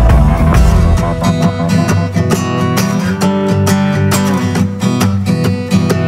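Background music with strummed guitar in an even rhythm; a deep bass fades out about a second in.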